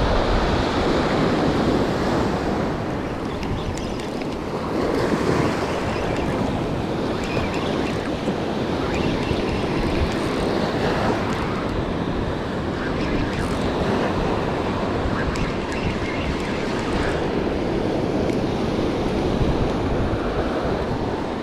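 Gulf surf washing onto a sand beach in slow swells, with wind buffeting the microphone.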